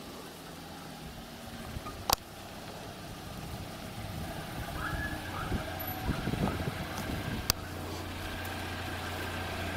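A car driving slowly up over grass and drawing near, its engine running low and getting louder as it comes. A sharp click about two seconds in, and a fainter one near the end.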